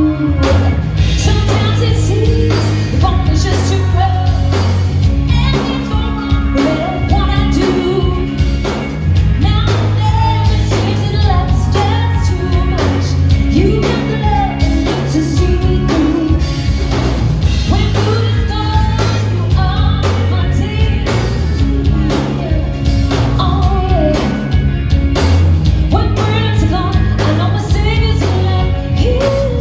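Live band playing a song with a lead singer, a steady drum beat and strong bass.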